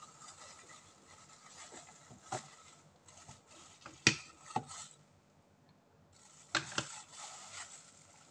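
Raw mussels being handled by hand: shells clicking and knocking against each other and the plate in a few sharp clicks, the loudest about four seconds in. A plastic bag rustles near the start and again from about six seconds in.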